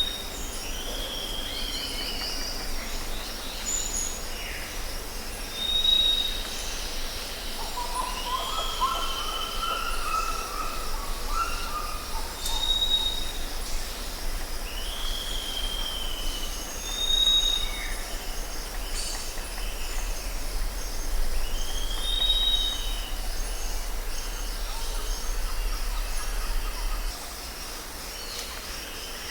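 Outdoor birdsong: one bird repeats a short high whistle followed by a falling slurred note every five seconds or so, and another sings a lower warbling phrase about a third of the way in. A steady low rumble runs underneath and fades out near the end.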